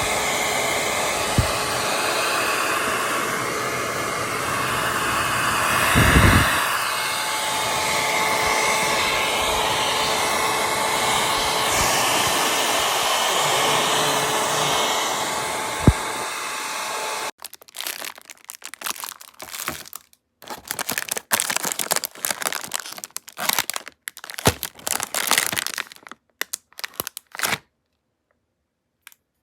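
Hot air brush (4-in-1 hair dryer brush) running, a steady rush of blown air with a faint motor whine. It cuts off suddenly a little past halfway. Scattered crinkling and crackling follow.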